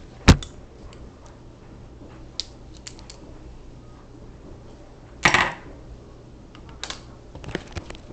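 Clicks and knocks of a ceiling fan's mount being handled and taken off its down rod: a sharp knock just after the start, scattered light ticks, and a louder brief scrape about five seconds in.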